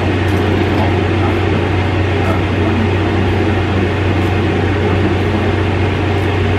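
Steady low hum with an even rush of air noise over it, from a running air-moving appliance.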